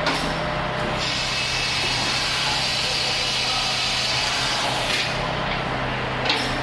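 Fadal vertical machining center running under power: a steady mechanical hum with a higher hiss that eases off about five seconds in, and a short click near the end.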